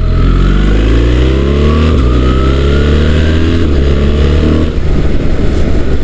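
BMW R1300 GS's 1300 cc boxer twin accelerating hard from about 20 to 60 mph, its pitch climbing through the revs with two upshifts, 2nd to 4th gear, about two seconds in and near the end, with wind noise over the bike.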